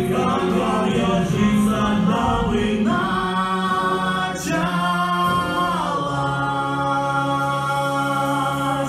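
Voices singing together without instruments, a slow song with long held notes, the lower voices holding one low note through the last few seconds.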